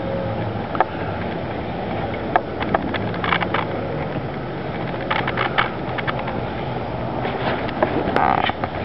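Steady outdoor rumble and hiss with scattered light clicks and knocks, and a short brighter burst near the end.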